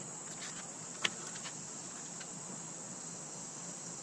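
Steady high-pitched drone of insects, with one sharp click about a second in and a few fainter clicks and taps.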